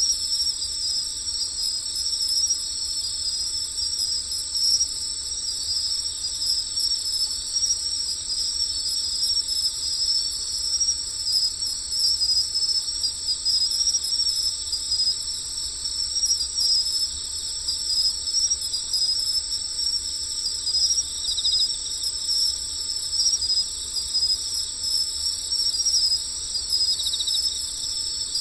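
Steady chorus of insects trilling at a high pitch, two layers of shrill trills overlapping without a break.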